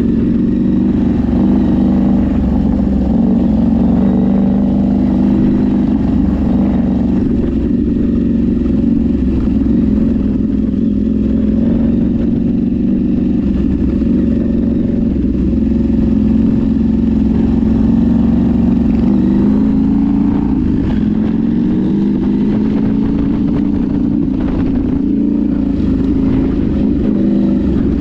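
An off-road vehicle's engine running under load while driving, its pitch drifting up and down, with a few knocks and rattles in the later seconds.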